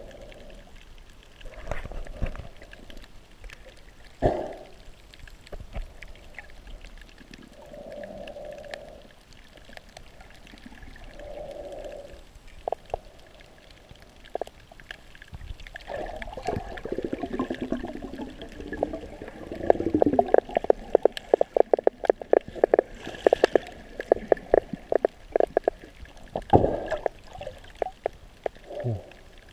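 Muffled underwater sound heard through a GoPro's waterproof housing: water gurgling and sloshing around a swimming snorkeler, with muffled breaths through the snorkel. In the second half a dense run of sharp clicks and knocks comes through.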